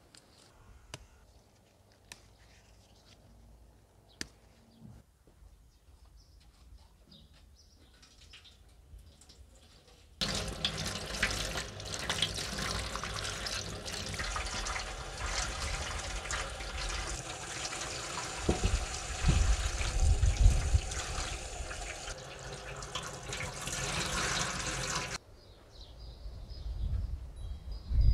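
Tap water running hard into a stainless steel sink as young onions are rinsed under it by hand, with a few low knocks partway through. It starts abruptly about a third of the way in and stops abruptly near the end. Before it there is only a faint background with a few light clicks.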